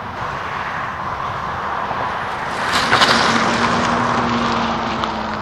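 Renault Zoe electric car pulling away almost silently, with no engine sound. There is a swell of tyre noise on the road about halfway through, then a steady low hum as it drives off, over a constant background hiss.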